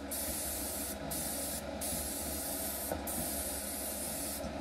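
An airbrush spraying thinned paint, a steady airy hiss with a few brief dips as the trigger is eased between passes. It is laying down dark grey weathering for tire wear and oil on a model road.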